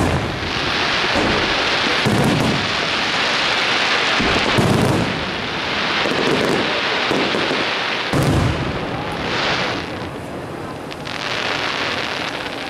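Aerial fireworks shells bursting with deep booms, about four of them a couple of seconds apart, over a continuous hissing crackle of rising comets and falling sparks.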